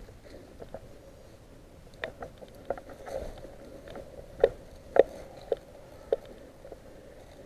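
Irregular light knocks and clicks in a small room, about half a dozen spread unevenly, the loudest two about halfway through.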